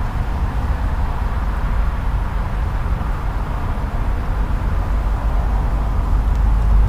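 Wind rumbling on the microphone: a steady, fluttering low noise that grows stronger near the end.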